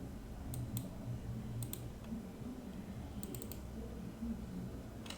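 A few scattered computer keyboard key clicks, some single and some in quick little runs, over a steady low electrical hum.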